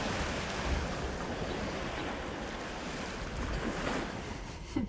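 Steady rush of water along a sailboat's hull under way at about six knots in flat seas, with wind buffeting the microphone.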